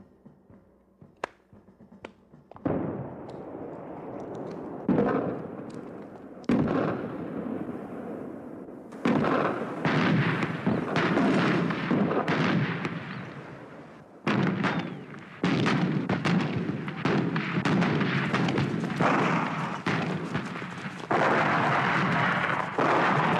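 Battle gunfire and explosions. After a few faint clicks, a sudden loud blast comes about two and a half seconds in, then more blasts every few seconds, each leaving a dense noise that carries on between them.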